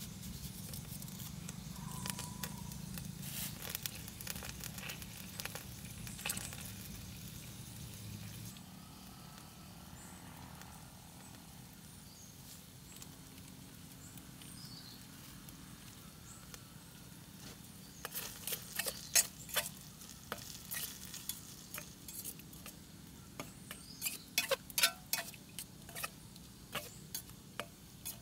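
Food sizzling in a steel pot over a wood fire, with scattered sharp clicks and taps that come thick and loud in the second half.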